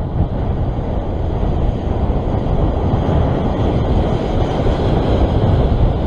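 Strong wind buffeting the microphone over the wash of rough sea swell: a steady, loud rumbling rush with no breaks.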